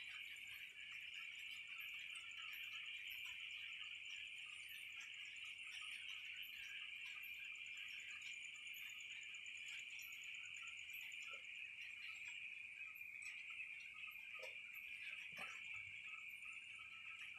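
Night insects, crickets chirring in a steady high trill, with a fainter high chirp repeating about once a second.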